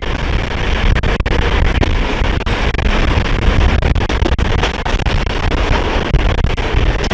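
Moving train hauled by an SU45 diesel locomotive, heard with heavy wind buffeting the microphone: a loud, dense rumble with sharp knocks scattered irregularly through it.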